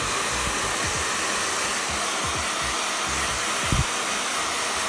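Handheld hair dryer running steadily, blowing on wet hair held upside down to add volume.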